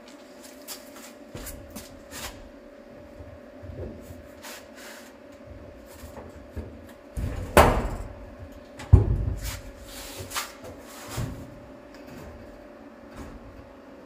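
Steel cab door of a 1962 Chevrolet C20 crew cab being worked open and shut on its new hinges: light clicks and taps, then two loud metal clunks a second and a half apart about halfway through, over a faint steady hum.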